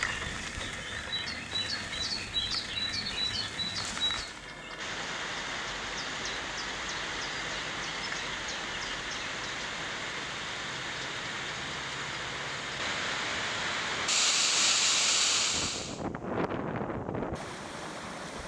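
A bird repeats a short high chirp, about three a second, for the first few seconds over a steady rushing noise. Later a louder rush of water comes in, a mountain stream running over rocks.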